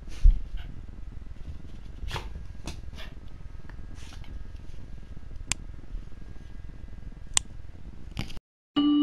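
Shiba Inu sniffing close to the microphone in short noisy puffs, with a few sharp clicks between them. The sound drops out briefly near the end and a music jingle begins.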